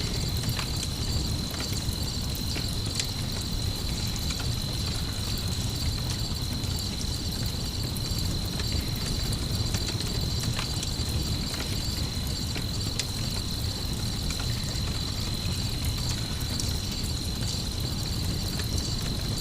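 Layered night ambience: crickets chirping steadily and high, over a low rumble, with scattered small crackles and pops of a campfire.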